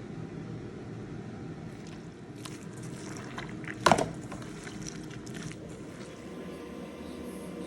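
A steady low hum, a few small clicks, and one sharp clink with a short ring about four seconds in.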